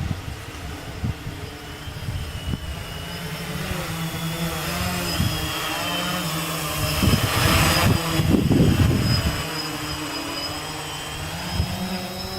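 Gaui 500X quadcopter's electric motors and propellers whirring in flight. The pitch wavers up and down as the motors change speed against the gusts, and it grows loudest a little past the middle. Wind rumbles on the microphone underneath.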